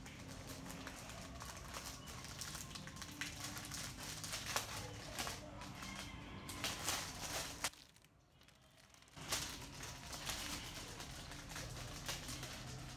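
Clear plastic packaging bags crinkling and rustling as they are handled, with a brief break of about a second roughly two-thirds of the way through.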